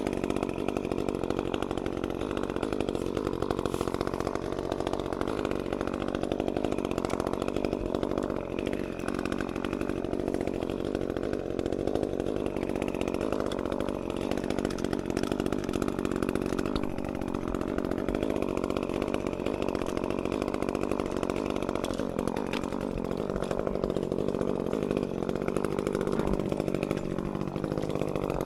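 Chainsaw engine running steadily at an even pitch, not revved.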